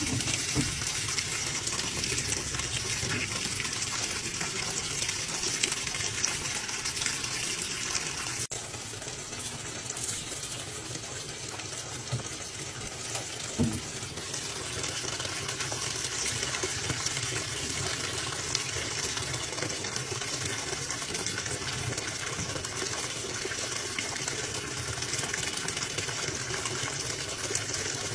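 Water pouring from the fill inlet into a top-load washing machine's drum, a steady gush splashing onto sudsy water. One short knock about halfway through.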